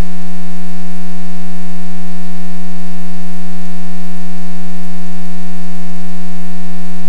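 A loud, steady low buzz with overtones on the aircraft's radio and intercom audio, unchanging and drowning out everything else.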